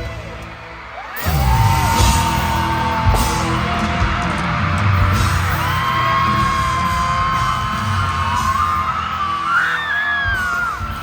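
Live concert sound in a stadium: the music dips, then about a second in a loud hit comes in and the crowd screams and cheers over the music, with long high-pitched screams close to the phone.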